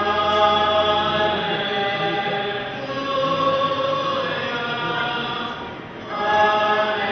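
Slow liturgical hymn sung by a choir in long, held phrases, with short breaks between phrases about three seconds in and again near the end.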